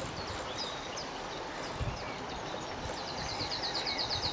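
A garden's outdoor background with scattered bird chirps. About three seconds in, a bird starts a fast run of short, high, falling notes, several a second.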